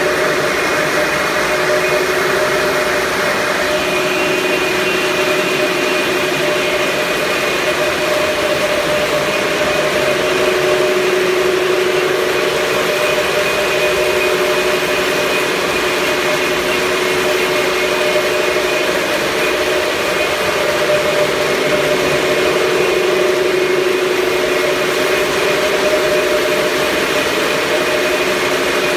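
A steady mechanical hum with a few steady tones over a loud, even noise, like an engine or motor running without change.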